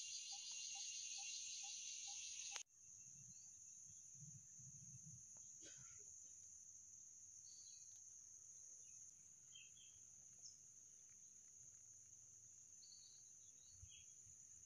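Faint insect chorus, a steady high-pitched drone. In the first couple of seconds a second call pulses about twice a second under it. After a sudden cut, only the steady high drone remains over a faint low rumble.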